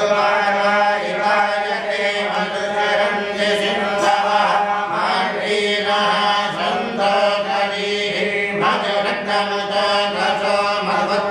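Devotional chanting of a mantra, sung continuously over a steady low drone.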